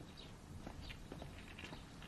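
Faint footsteps: a few soft, irregular steps of a person walking in.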